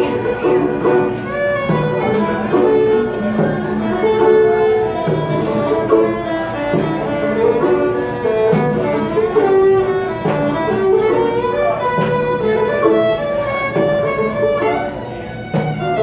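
Fiddle and five-string banjo playing an instrumental break together, the bowed fiddle carrying the melody over the picked banjo.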